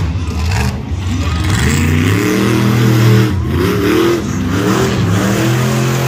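Monster truck engine revving hard, its pitch swinging up and down several times.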